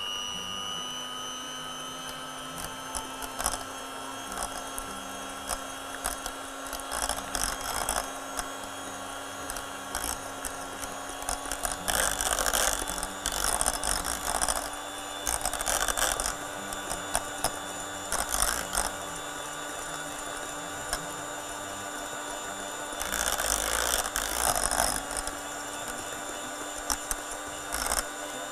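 Electric hand mixer running steadily, its beaters whipping cream in a stainless steel saucepan, with repeated bursts of rattling as the beaters knock against the side of the pan.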